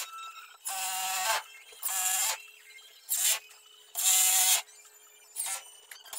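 Cordless drill run in about five short bursts against a plywood tabletop, each a second or less, with a pitched motor whine.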